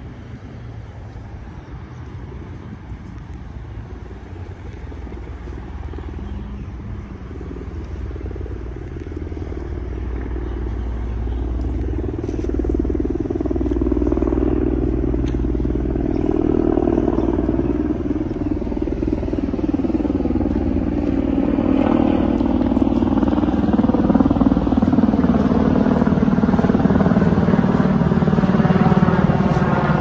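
Aircraft engine droning overhead, growing steadily louder as it approaches, its pitch sweeping slowly downward over the last several seconds as it passes.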